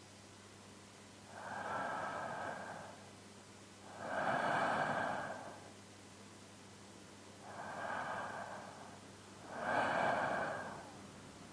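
A man's slow, even sleeping breaths, close-miked on a binaural microphone: four soft in-and-out breath sounds, each swelling and fading over a second or so, with quiet pauses between.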